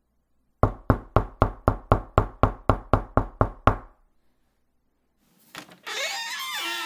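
Knocking on a door, thirteen even raps at about four a second. After a pause, a click and then a squeaky door hinge creaking with a wavering, gliding pitch as the door opens.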